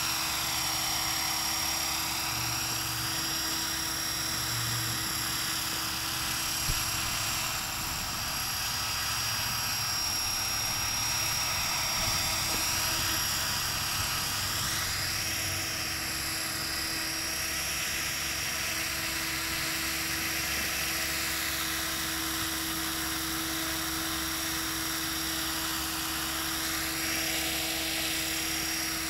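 Align T-Rex 500 electric RC helicopter flying: a steady high whine from its motor, gears and spinning rotor blades, sweeping up and down in pitch a few times as it manoeuvres.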